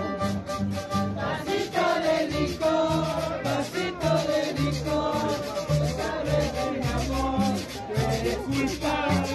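Live harp and violin playing a lively tune together. The harp's plucked bass notes keep a steady beat under the violin's bowed melody.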